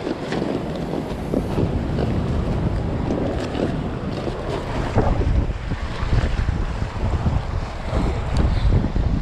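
Wind buffeting the microphone over waves washing against a rocky shore, with a few light knocks and rustles of handling.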